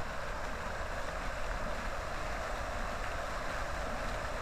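Many fountain jets splashing down into a pool, a steady rushing of water.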